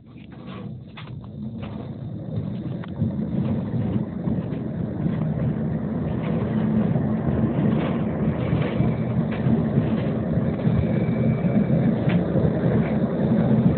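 Tram running, heard from inside the car: a low rumble and hum that grows steadily louder through the stretch, with a few sharp clicks in the first second or two.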